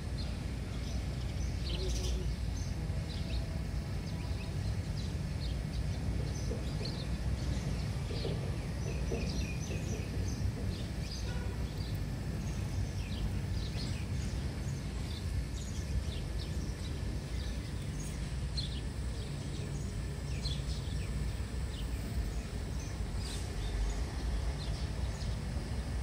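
Outdoor ambience: many small birds chirping in short, scattered calls over a steady low rumble.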